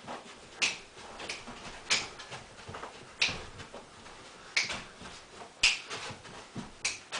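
A series of short, sharp percussive hits from a man dancing, about seven in all. They fall loosely on a beat roughly two-thirds of a second apart, with some beats skipped.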